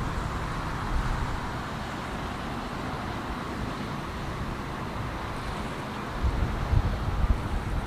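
Wind buffeting the microphone over a steady distant rumble, with stronger gusts near the end.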